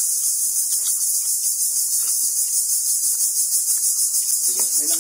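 Loud insect chorus: a high-pitched, steady drone pulsing about six or seven times a second.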